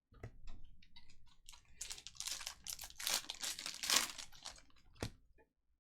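Foil wrapper of a trading-card pack being torn open and crinkled, a dense run of crackling through the middle, with a sharp tap near the start and another near the end.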